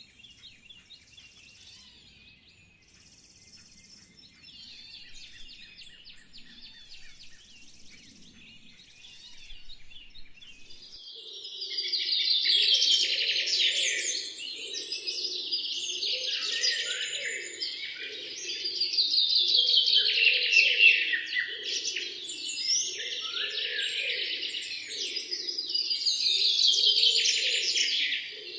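Birdsong: faint, scattered chirps at first, then from about eleven seconds in a loud, close bird sings long phrases of rapid descending trills, repeated about every seven seconds. A lower pulsing sound runs beneath the loud phrases.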